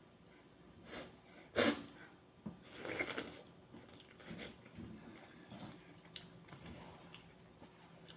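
Close-miked sounds of a person eating very spicy noodles: sniffling and mouth noises, the loudest a sharp one about a second and a half in and a longer hissing one about three seconds in, with quieter small ones after. The sniffles come from the chilli heat.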